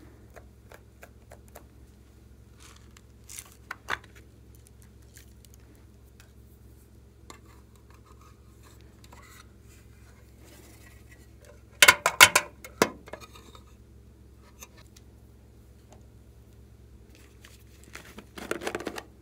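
Small plastic containers and lids being handled and emptied over a glass dish: scattered light clicks and taps, a quick run of loud sharp plastic clicks about twelve seconds in, and a short rustling, scraping stretch near the end.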